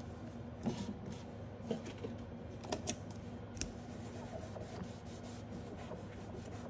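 A cleaning pad rubbed across a metal nail-stamping plate to wipe off red polish, with a few short scrapes and taps spread over the first few seconds.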